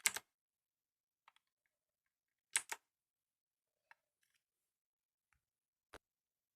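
A few single key presses on a mechanical keyboard with clicky blue switches, each a sharp click: a pair at the start, another pair about two and a half seconds in, and fainter single clicks in between and near the end.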